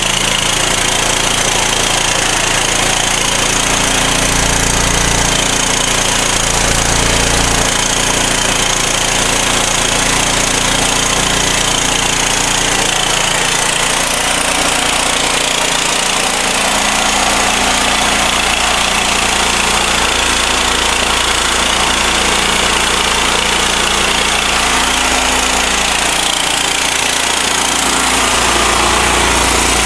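Portable 7,000-watt gasoline generator's engine running steadily on charcoal gas (carbon monoxide) fed from a charcoal gasifier.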